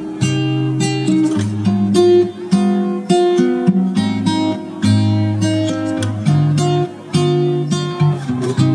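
Background music of plucked and strummed acoustic guitar, with distinct notes picked out in a steady rhythm.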